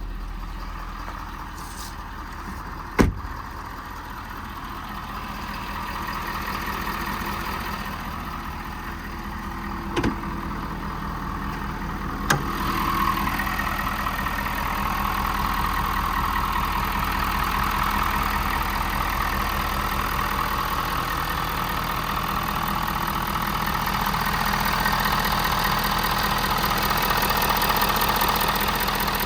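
Ford 6.7 L Power Stroke diesel engine of a 2020 F-550 running steadily at idle, with three short sharp clicks about 3, 10 and 12 seconds in. After the third click the engine sound grows louder and stays louder.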